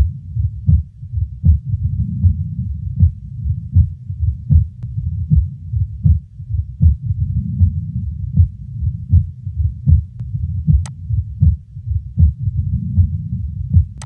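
Heart sounds through a stethoscope, beating steadily at about 80 beats a minute. The second heart sound is paradoxically (reversed) split, the sign of delayed aortic closure from left bundle branch block. The patient's breathing is heard in the background.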